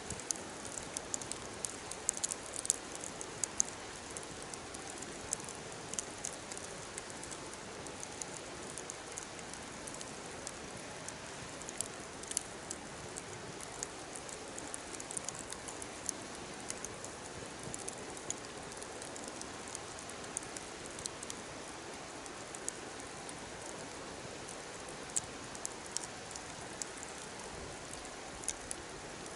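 Wood fire burning steadily, with frequent small irregular crackles and pops over a soft, even hiss.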